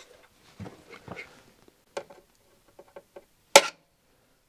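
Pliers and a screwdriver working a knockout on a metal electrical box: a few small metallic clicks and scrapes, then one sharp metal clack about three and a half seconds in as the knockout is struck.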